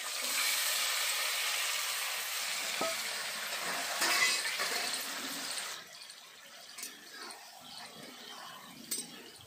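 Small fish in spice paste hitting hot oil in a karahi: a loud sizzle that drops off sharply about six seconds in to a quieter frying hiss. A couple of clicks of a metal spatula stirring come near the end.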